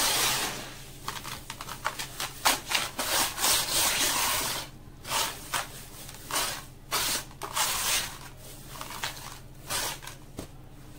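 Hands digging through and squeezing grainy sand-cement mix in a plastic bucket: irregular gritty crunching, crackling and rustling swishes of the grains as they shift and crumble.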